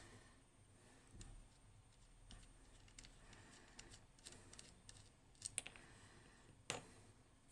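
Quiet, scattered light clicks and taps of small tools and lock parts being handled, with two sharper clicks near the end.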